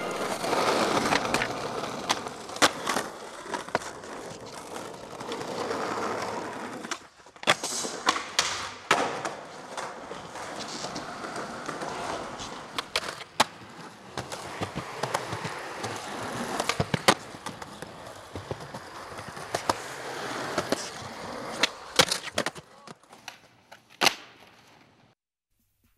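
Skateboard wheels rolling on concrete, with sharp clacks from the board every few seconds. The sound fades out near the end.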